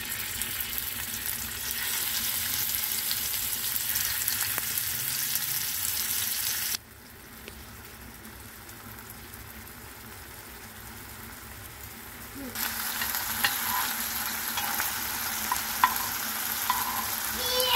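Small minced-meat meatballs frying in hot oil in a pan with a steady sizzle. The sizzle drops abruptly quieter about seven seconds in and comes back loud about twelve and a half seconds in, now with scattered sharp pops of spattering oil.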